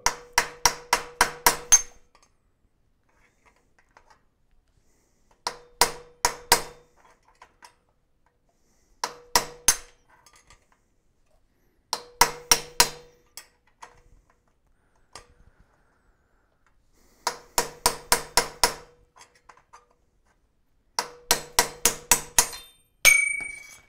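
Hammer striking a steel punch to drive the upper headset cup out of a bicycle head tube: six quick bursts of metallic taps with pauses between, as the press-fit cup is worked loose. A brief ringing tone near the end.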